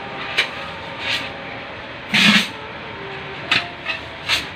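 Clanks and knocks of hand tools and sheet metal during car body repair on a rusted floor pan: several sharp knocks, the loudest about two seconds in and a few more near the end, over a steady background noise.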